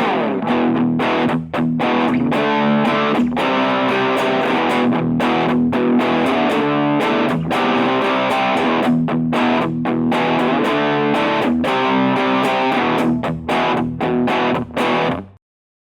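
Electric guitar played through a Caline CA200G 'The Blacksmith' practice amp with a distortion sound, with repeated chord attacks. The playing stops abruptly near the end.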